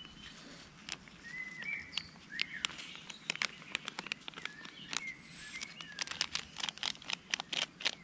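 Birds chirping, and from about halfway in a spoon clicking rapidly against a plastic bowl as masala powder is stirred into water.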